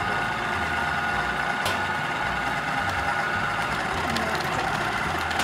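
Amway food processor motor running steadily with its dough blade, kneading bread dough while water is added and the dough starts to come together. The hum throbs unevenly at the low end, with a light click about a second and a half in.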